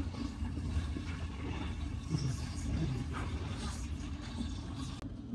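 Oslo T-bane metro train running along the track, a steady low rumble heard from inside the carriage.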